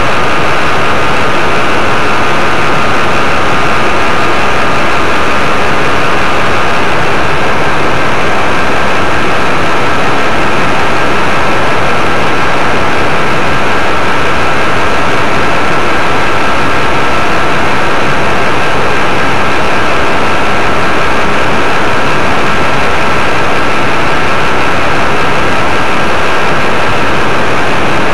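Paramotor engine and propeller running steadily in flight. It is loud and unchanging, a dense rush of noise with a thin steady whine on top.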